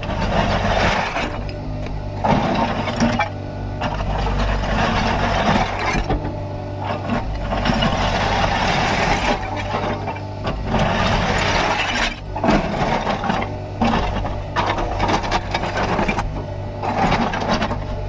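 Kubota KX61-3 mini excavator's diesel engine running steadily, with repeated louder surges of noise every few seconds as the hydraulics work the arm and bucket.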